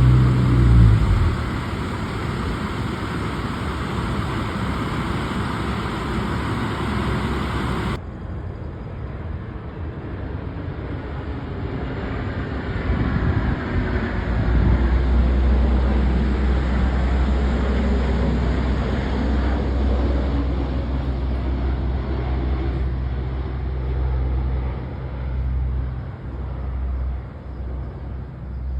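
Vehicle engines and road noise at road works, with an abrupt change about eight seconds in and a steady low engine drone from about halfway on.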